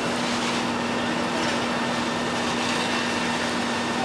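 Heavy diesel machinery running steadily: an even drone with a constant low hum.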